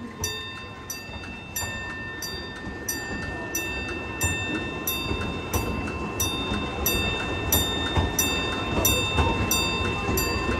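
Railroad crossing bell ringing at an even pace, about one and a half strikes a second, while an amusement-park train's open passenger coaches roll past the crossing with a low rumble that grows louder.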